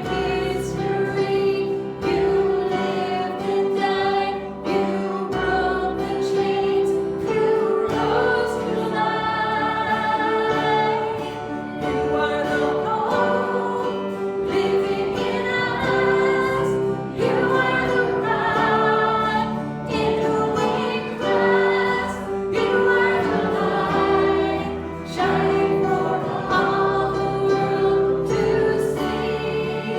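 Congregational worship singing: a group of voices singing a hymn with instrumental accompaniment.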